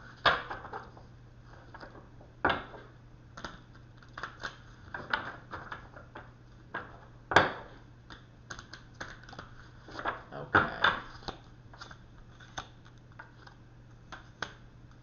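A deck of Wisdom Oracle cards being shuffled by hand: an irregular patter of soft clicks and flicks from the card edges. A few louder snaps stand out among them.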